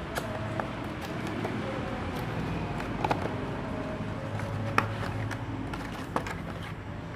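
Small product box being opened and handled by hand: a few scattered clicks and taps of packaging over a steady background hum.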